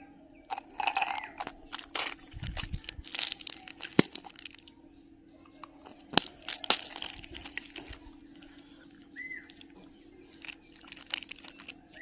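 Plastic-wrapped candies and plastic toy candy containers being handled and rummaged: crinkling wrappers with scattered sharp plastic clicks and taps, the loudest a single click about four seconds in.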